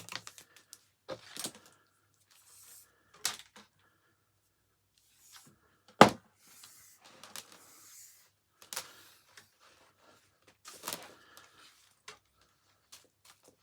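Scattered clicks, knocks and scrapes of hands and tools working on a vacuum cleaner's mains cable and plastic housing, with one sharp click about six seconds in.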